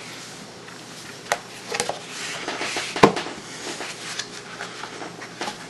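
Plastic lid being fitted onto a bowl and pressed down around its rim: a few clicks and knocks, the loudest about three seconds in, with the plastic rubbing and rustling between them.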